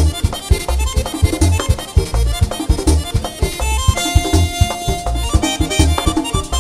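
Instrumental passage of a Dominican merengue típico band: accordion playing over a steady beat of bass and percussion, with a long held note from about four seconds in.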